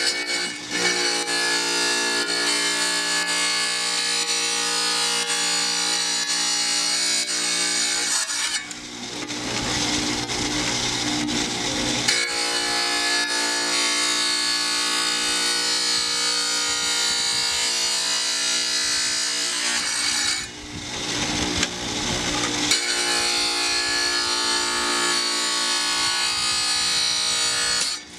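Wet tile saw running, its diamond blade grinding through a glass beer bottle as the bottle is turned against it: a steady, high whining grind. About eight seconds in and again about twenty seconds in, the level dips briefly and the grind turns rougher for a few seconds.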